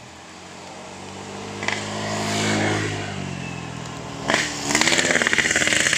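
Passing motor vehicle engines. One hums past, its pitch rising and then falling. About four seconds in, a louder engine revs close by with a fast, even pulsing.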